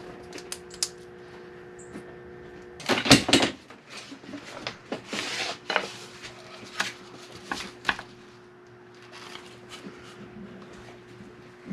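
Vinyl floor tiles and brown paper-bag templates being handled on a wooden tabletop: scattered knocks and taps with paper rustling, the loudest knocks about three seconds in, over a steady hum.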